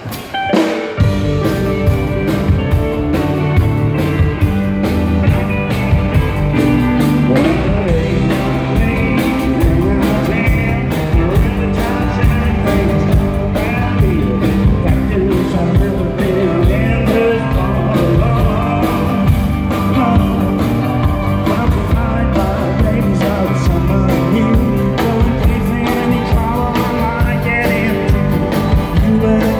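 Live country band playing an up-tempo song on electric guitars, acoustic guitar, drums and pedal steel guitar, with the full band coming in about a second in.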